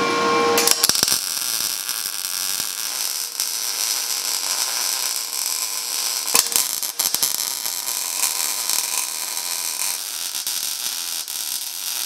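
Wire-feed welder arc laying a weld bead, a steady crackling hiss that starts about half a second in and breaks briefly about halfway through before carrying on.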